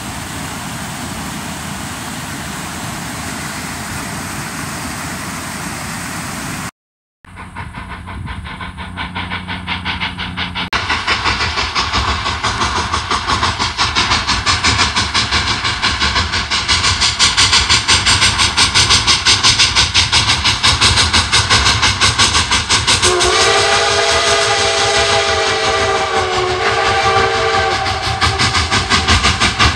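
Creek water rushing over a small log-jam cascade, then after a brief cut a steam locomotive pulling passenger coaches, its exhaust chuffing rapidly and getting louder as it nears. A multi-tone steam whistle blows a long blast about three-quarters of the way through and starts another right at the end.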